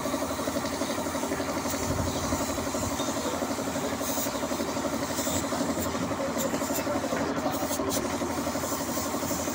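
Air compressor feeding a paint spray gun, running steadily with a fast mechanical pulsing drone, with a few short hisses from the spray gun.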